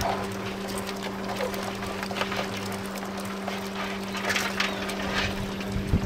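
Live buck crabs scrabbling in a plastic drum: irregular clicks and scratches of legs and claws against the plastic, a few of them sharper about four to five seconds in. Under it runs a steady motor hum.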